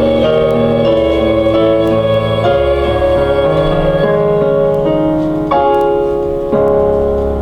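Keyboard accompaniment for a musical, sustained chords changing every second or so, with two fresh chords struck near the end.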